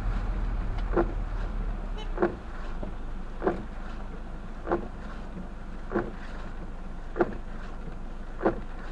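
Windshield wipers sweeping across a wet windshield, heard from inside the car: a short thump at each stroke, about one every second and a quarter. The low road rumble drops away about two seconds in as the car comes to a stop.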